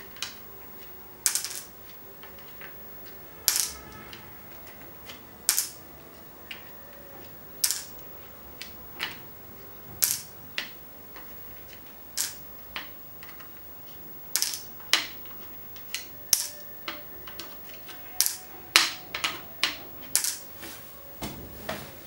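Small black plastic pegs clicking against a green plastic peg-solitaire board and its plastic tray as they are lifted out, pushed into holes and dropped aside. The clicks are sharp and separate, one every second or two, coming faster in the second half.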